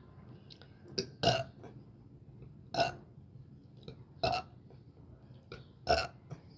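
A person burping repeatedly: four short, loud burps about a second and a half apart, with a smaller one just before the first.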